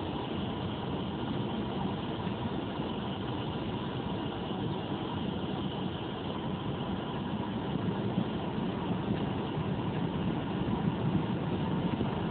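Car engine running with tyre and road noise on snow, heard from inside the cabin; it grows somewhat louder in the second half.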